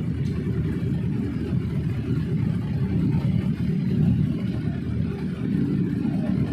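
Several sport motorcycles, green Kawasaki Ninjas among them, running together at idle: a steady engine sound with no clear revving.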